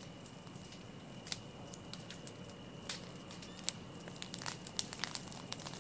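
Wildfire crackling: scattered sharp pops and crackles of burning vegetation and debris, coming more often toward the end, over a faint steady hum.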